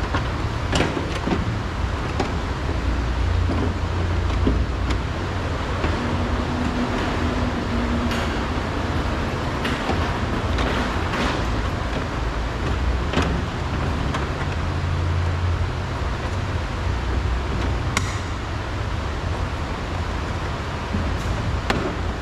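Scattered clicks and knocks of plastic door trim and parts being handled and worked loose inside a car door, over a steady low rumble.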